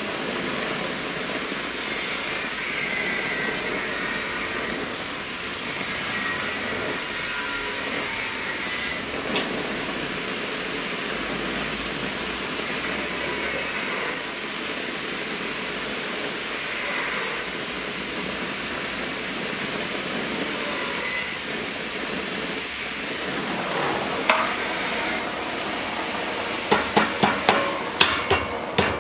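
Oxy-fuel torch hissing steadily as it heats a metal fitting. Near the end, a hammer strikes the red-hot metal on a vise in a quick run of blows, about three a second.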